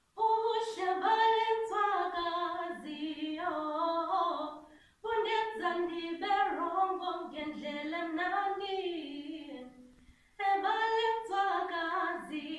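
A woman singing unaccompanied, in three long sustained phrases with brief breaths between them.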